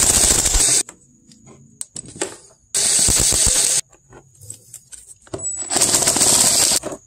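A ratchet on a long socket extension runs in three bursts of rapid clicking, each about a second long, as it backs out the fan shroud's 10 mm bolts. There are small metal knocks in the pauses between bursts.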